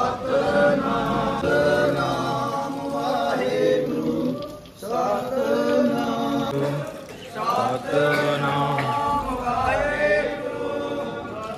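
Voices singing a Sikh devotional chant in long sustained phrases, breaking off briefly about five seconds in and again near seven seconds.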